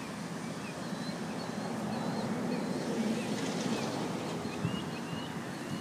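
Outdoor ambience: wind on the microphone over a steady low rumble that swells slightly in the middle, with short high chirps repeating throughout.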